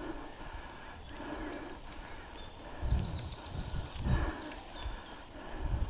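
Mountain bikes rolling over a forest dirt trail, picked up by the rider's camera: a steady rustling rumble broken by heavy low thumps about three seconds in, a second later and near the end. Songbirds sing over it, with a quick high trill about three seconds in.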